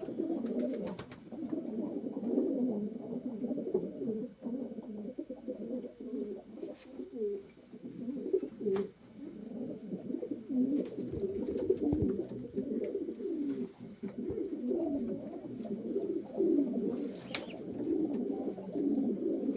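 Many racing pigeons cooing together in a loft, a continuous overlapping chorus of low coos with a few faint clicks and taps.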